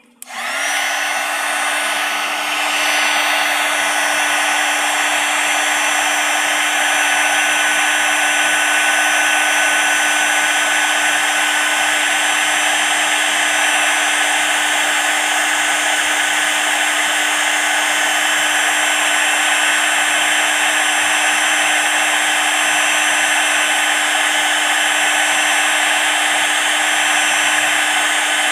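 Heat gun switched on and running steadily, shrinking heat-shrink tubing over crimped wire connectors: a steady hum with a higher whine over a blowing hiss, coming up to full speed over the first few seconds.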